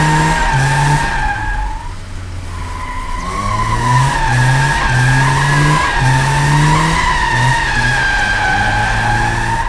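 Rear tyres squealing through a drift: a loud, wavering high squeal that breaks off briefly about two seconds in and then returns. Under it, the BMW E30's swapped M42 four-cylinder engine runs on the throttle.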